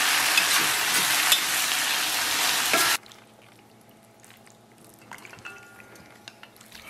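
Fried rice sizzling loudly in a hot wok while a spatula stirs and scrapes through it, cutting off abruptly about three seconds in. After that only faint clinks are heard as food is tipped onto a stainless steel plate.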